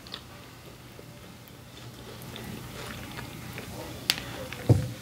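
Quiet close-miked eating sounds: faint chewing and small mouth clicks, with a sharp click about four seconds in and a short low sound just before the end.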